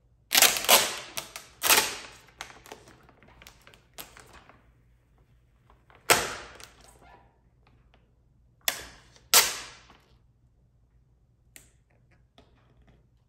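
Adhesive headlight tint film being pulled up off the headlight lens and laid back down: about six sharp peeling noises, each fading within about half a second, with quieter rustling of the film between.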